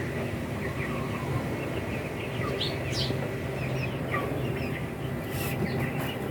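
Small birds chirping: short, scattered chirps, a few at a time, over a steady low hum.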